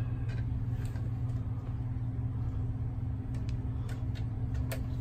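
Steady low machine hum, with a few faint small clicks in the second half from a screwdriver working the terminal screws of a GFCI outlet to free its wires.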